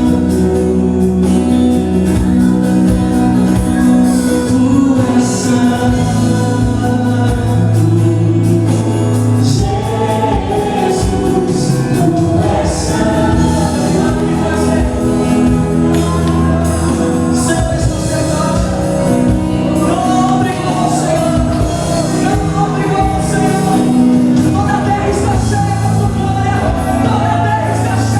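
Worship music: sustained keyboard chords and bass with voices singing over them.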